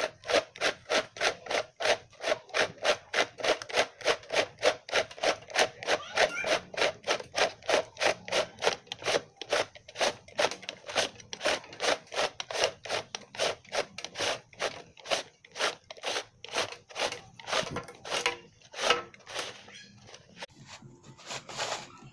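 Homemade plastic jerry-can cord reel being turned to wind in its red extension cable: a rhythmic rubbing scrape of plastic on each turn, about three a second, slowing toward the end.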